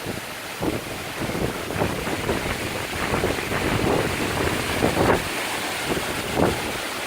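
Hurricane wind gusting in uneven surges, buffeting the microphone.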